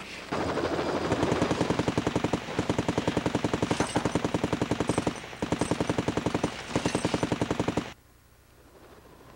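Machine-gun fire: several long bursts of rapid, evenly spaced shots with brief pauses between them, stopping abruptly near the end.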